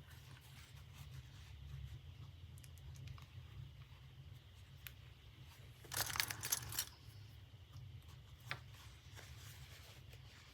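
Fabric and sewing clips being handled on a worktable: faint scattered clicks and rustles, with a short burst of crinkling rustle about six seconds in and a single click a couple of seconds later.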